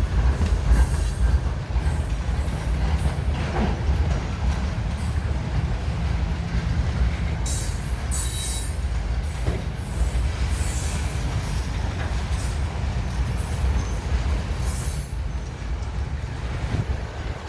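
Freight train rolling past at close range: a steady low rumble of railcars on the track, with high-pitched wheel squeal coming and going, strongest about halfway through.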